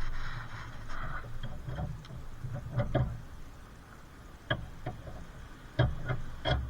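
Irregular clicks and knocks of hand tools on metal car suspension parts, with a short rustle in the first second.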